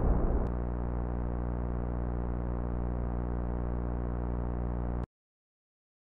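A steady, low electronic synthesizer drone of held tones, following the fading tail of a louder sound in the first half second. The drone cuts off abruptly about five seconds in.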